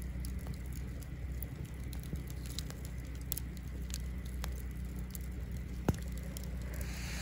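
Wood campfire crackling, with scattered small pops over a steady low rumble and one sharper pop about six seconds in. A soft hiss comes in near the end.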